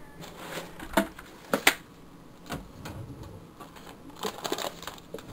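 Handling noise: scattered light clicks and knocks, with a sharper pair about a second and a half in, as food packages and the handheld camera are moved about.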